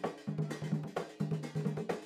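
Traditional Comorian double-headed, cord-laced barrel drums played together in a steady, fast rhythm, with a strong stroke about twice a second and lighter strokes in between.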